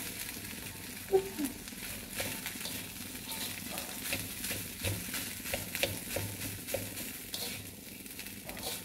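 Rice being stir-fried in a wok: a steady sizzle with repeated irregular scrapes and taps of a slotted spatula against the pan as the rice is turned and tossed.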